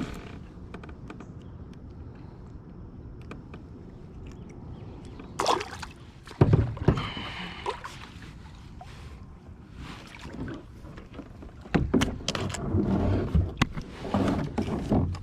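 Handling noises aboard a plastic fishing kayak on the water: clusters of knocks and rustling against the hull, about a third of the way in and again near the end, over a steady background of wind and water.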